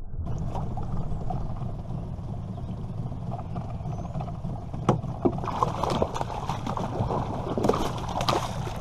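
A hooked channel catfish on a bank-pole line thrashing and splashing at the water surface as it is pulled in. A run of sharp splashes starts about five seconds in, over a steady low rumble.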